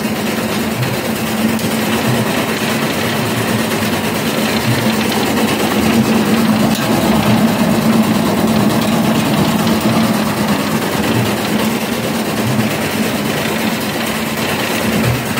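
Inclined screw conveyor running steadily, its auger turning through granular feed material, giving a constant mechanical hum with a steady drone over it.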